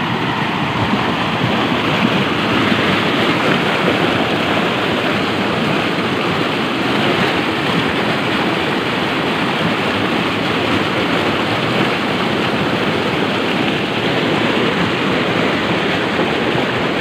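Water gushing hard out of the large discharge pipes of motor pumps and churning into a canal, a loud, steady rushing: the pumps are draining a rice field flooded by rain.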